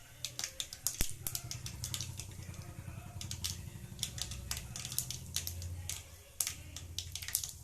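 Mustard seeds and cumin spluttering in hot oil in a pan: many sharp, irregular pops and crackles over a low steady hum.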